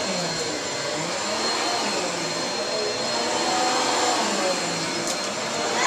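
Vacuum cleaner running steadily, a constant rushing motor noise with a thin high whine over it.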